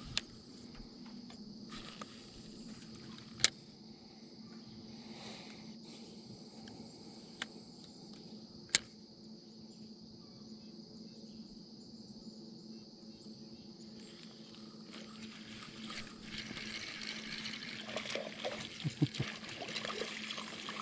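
A 30 lb thrust electric trolling motor humming steadily in reverse, with water trickling and lapping at the boat and a few sharp knocks in the first half. Near the end the water noise grows louder, with a few splashes.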